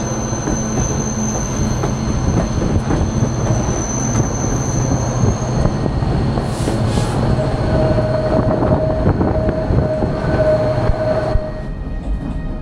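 Narrow-gauge passenger train running on the rails, heard from an open car platform, with steady wheel squeal: a thin high squeal for about the first half, then a lower squeal tone through most of the second half. Near the end the sound drops and turns muffled as it is heard from inside the coach.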